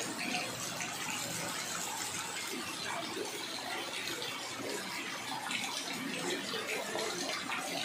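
Rain falling steadily onto a flooded street, a constant hiss of drops spattering the standing water.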